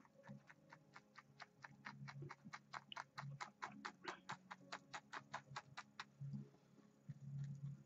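A paintbrush tapping paint onto the canvas to build a pine tree: a fast, even run of light taps, about five a second, that stops about six seconds in.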